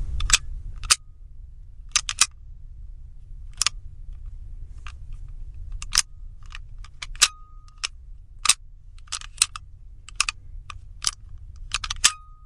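Door lock bolt being worked back and forth: a couple of dozen sharp metallic clicks at irregular intervals, some with a brief ringing tone after them, over a steady low hum.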